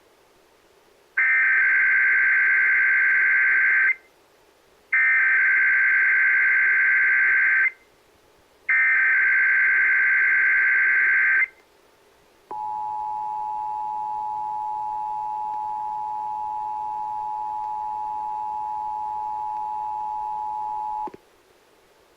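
Emergency Alert System Required Monthly Test: three bursts of SAME digital header data, each about three seconds with a second's gap between them. Then the two-tone attention signal is held steadily for about eight and a half seconds and cuts off sharply.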